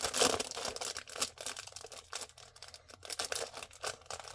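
Packaging being handled: rustling and crinkling of paper and plastic with scattered small clicks and taps, busiest in the first second.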